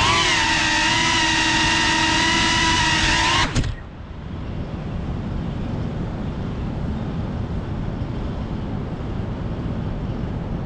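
FPV quadcopter's motors and propellers whining at a steady pitch while it rests on the ground, then cutting off suddenly about three and a half seconds in as the motors are disarmed. After that only a low, steady background noise of the city remains.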